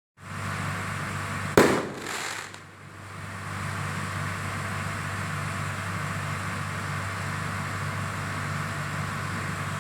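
A single firework bang about a second and a half in, followed by a fainter burst about half a second later, over the steady hum of a diesel generator running.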